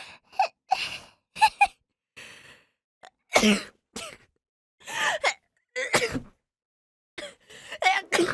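A woman sneezing and gasping: a quick run of short, separate bursts of sharp breaths and sneezes, about a dozen in eight seconds.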